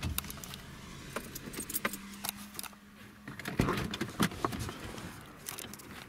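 Light clicking and rattling inside a car cabin, over the car's low running hum.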